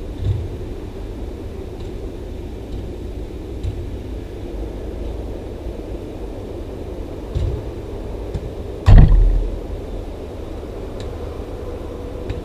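Steady low rumble of an indoor soccer cage during a game, with a few soft thuds and one loud, deep thud about nine seconds in.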